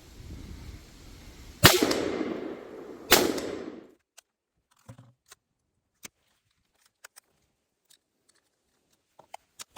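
Two pistol shots about a second and a half apart, each sharp crack trailing off in a long echo, followed by a few faint clicks.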